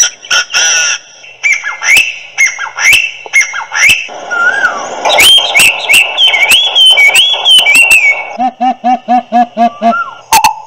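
Birdsong sound effect played loudly through a custom motorcycle brake-activated horn speaker: a string of chirps and rising whistled glides, then about a second and a half of rapid, evenly repeated notes near the end.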